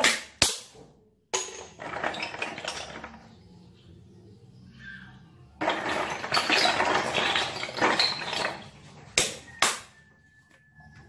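Hands rubbing and handling golden apple snails over a stainless steel sink: two stretches of scratchy scrubbing noise, with sharp knocks of shell at the start and twice more near the end.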